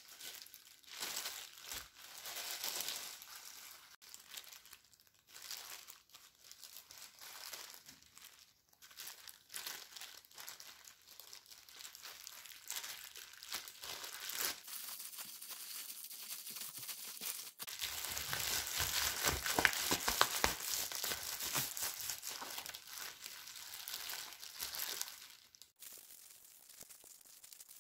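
Disposable plastic gloves crinkling and rustling as hands spread cooked rice on a sheet of gim and roll kimbap. The rustling comes and goes, loudest for several seconds past the middle.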